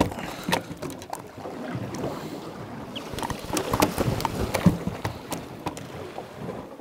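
Small boat drifting at sea: water lapping at the hull and wind on the microphone, with irregular knocks and clicks on the boat, the loudest about four to five seconds in.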